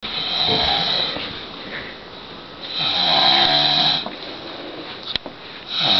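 A man snoring loudly: three long snores about three seconds apart, the last beginning near the end, with a short sharp click just before it.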